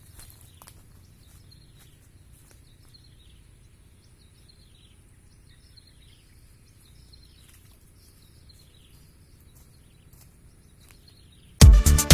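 Quiet outdoor ambience with a low rumble and faint, short falling bird chirps repeating about once a second. Near the end, loud electronic dance music with a heavy beat starts suddenly.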